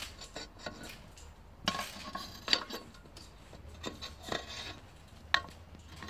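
Garden trampoline's metal springs and frame clinking and creaking as a child moves and lands on the mat, with a few sharp knocks.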